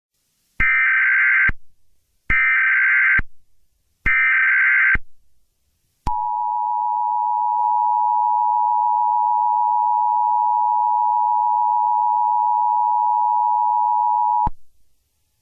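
Emergency Alert System alert tones: three short bursts of buzzing digital SAME header data, each just under a second, then the long steady two-tone attention signal that lasts about eight seconds and cuts off sharply. This sequence marks the start of an emergency alert broadcast.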